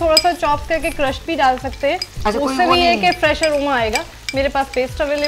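Sliced onions sizzling in hot oil in a kadai while a spatula stirs them, with a wavering pitched sound running over the frying.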